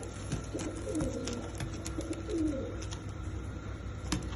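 Pigeons cooing, a run of low coos that fall in pitch, with scattered light clicks and a steady low hum underneath.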